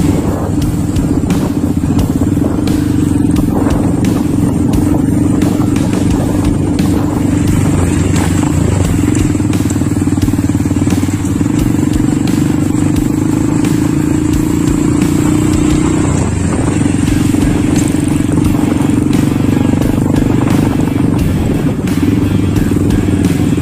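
Small motorcycle engines running steadily under way, heard from a bike ridden along a rough gravel dirt track.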